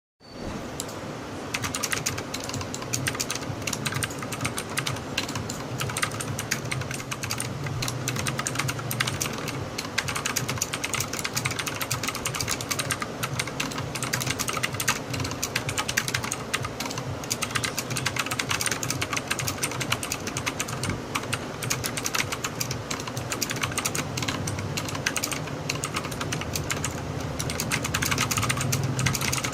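Fast, continuous typing on a Redragon Usas mechanical keyboard with clicky Outemu Blue switches and PBT keycaps: a dense, irregular stream of key clicks.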